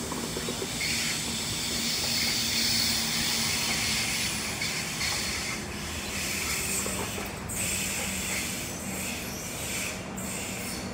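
Diesel freight train approaching: a steady low locomotive engine hum under a steady hiss of train noise, a little louder for a few seconds after the start.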